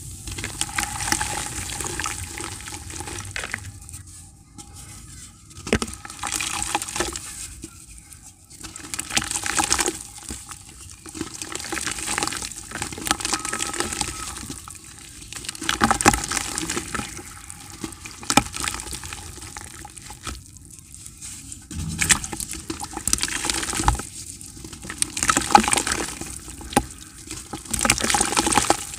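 Soft blocks of grey dirt crumbled and rubbed by hand over a bucket of water, the crumbs dropping and splashing into the water in irregular bursts with short quiet gaps.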